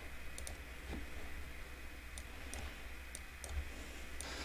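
A few faint, scattered computer mouse clicks over a low steady hum.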